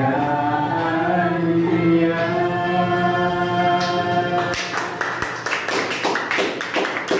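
Unaccompanied singing by a woman and a man, ending on a long held note about four and a half seconds in. A few people then clap.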